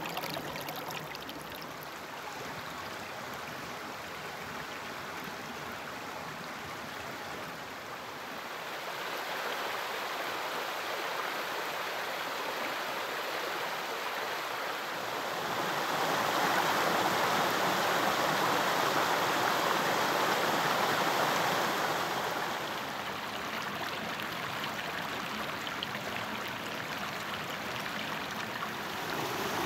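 Shallow rocky creek water running and splashing over stones: a steady rush that grows louder about halfway through, then eases back.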